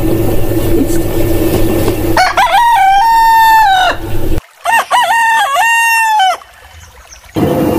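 Two roosters crowing one after the other, each a long cock-a-doodle-doo that rises, holds and falls off at the end. The first crow comes about two seconds in, after a stretch of background noise, and the second from another rooster follows just past the middle.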